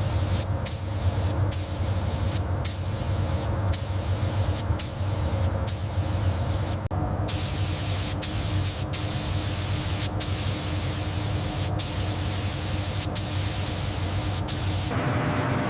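Steady spray-like hiss over a low hum, the hiss dropping out briefly over and over, about once a second at first and more sparsely later.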